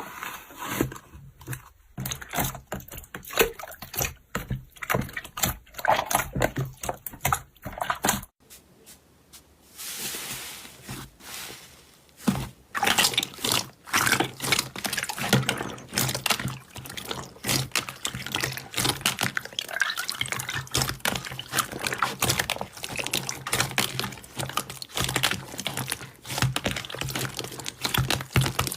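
Slime being squeezed and worked by hand, making dense, irregular wet clicks and pops. The clicking breaks off about eight seconds in, a soft hiss follows, and the popping resumes about twelve seconds in.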